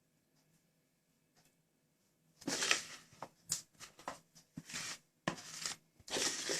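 Near silence, then from about two and a half seconds in a spoon scrapes thick cake batter out of a bowl into the baking tin in a run of short scrapes, about seven of them.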